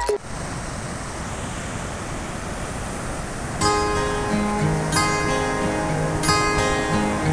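Steady rushing surf of waves breaking on a beach; about halfway through, strummed acoustic guitar music comes in with a repeating chord pattern, the surf still going underneath.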